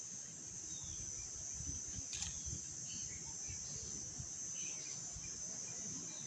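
Insects droning steadily at a high pitch, with low rustling underneath and a single sharp click about two seconds in.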